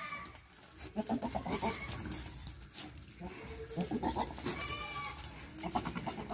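Sirohi and Ajmera goats bleating several times, the calls a couple of seconds apart.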